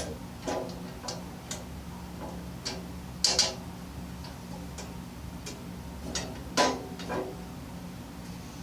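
Irregular light metallic clicks and clinks of the tool box's steel rails, bolts and nuts being handled and fitted, with two louder knocks about a third and three quarters of the way through.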